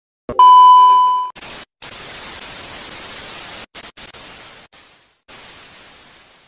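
TV test-pattern sound effect: a loud, steady, high beep lasting about a second, then television static hiss that cuts out briefly a few times and fades away near the end.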